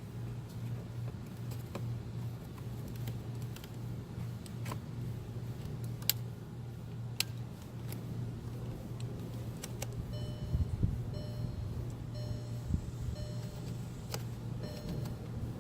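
Hands working a plastic dashboard light switch and its clip into the dash: sharp clicks and handling noise over a steady low hum. From about ten seconds in, a short electronic beep repeats several times.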